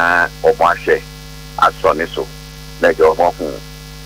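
A man talking in short bursts over a steady low electrical mains hum.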